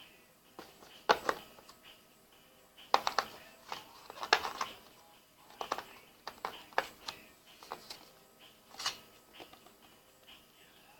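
Irregular clicks and knocks from a Logitech K750 keyboard being handled: single sharp strikes, a quick cluster about three seconds in, and several more in the middle.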